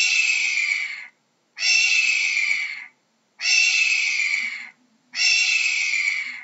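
A hawk screaming: four harsh, drawn-out calls, each a little over a second long and falling slightly in pitch, repeated at an even pace with short gaps between them.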